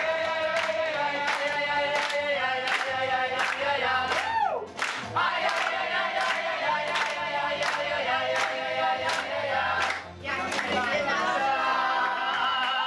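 A small group of performers singing together in chorus over a steady beat, about three beats every two seconds. Near the end the beat stops and the voices hold a final chord.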